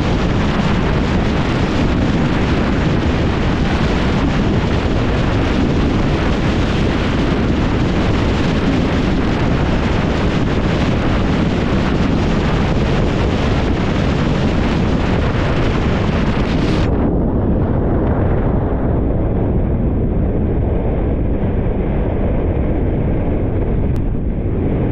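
Heavy wind buffeting the microphone over the steady rumble of a moving vehicle. The sound turns duller about seventeen seconds in, when the high hiss drops away.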